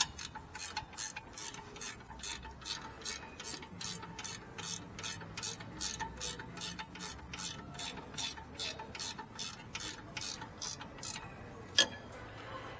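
A short ratchet wrench clicking steadily, about four clicks a second, as it runs down a rear brake caliper bracket bolt. The clicking stops about eleven seconds in, followed by one more click.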